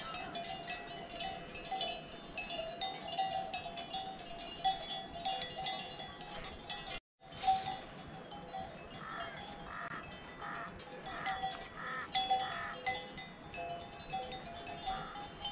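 Bells on grazing cattle clinking and ringing irregularly. About two-thirds of the way through comes a run of about six short repeated notes.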